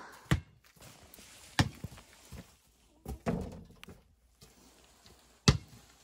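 Basketball bouncing on a concrete driveway: four single thuds, irregularly spaced, with a couple of fainter knocks between them.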